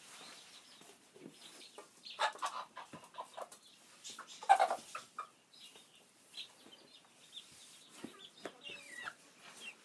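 Chickens clucking in short, scattered calls, the loudest about four and a half seconds in, with a few knocks in between.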